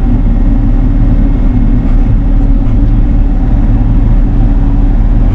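Bobcat E42 mini excavator's diesel engine running steadily.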